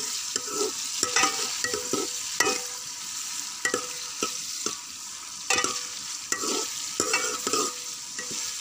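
Sliced onions sizzling in hot ghee in a metal cooking pot, the first stage of frying them. A metal ladle stirs them, scraping and knocking against the pot about once or twice a second, and the pot rings briefly after some strokes.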